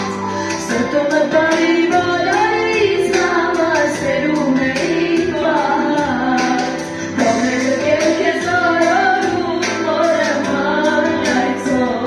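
A young woman singing a song in Armenian into a handheld microphone, over backing music with a steady percussive beat.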